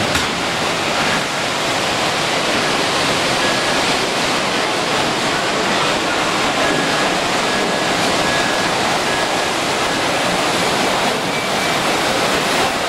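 Steady, even wash of background noise in a busy exhibition hall, with model trains running on the layout.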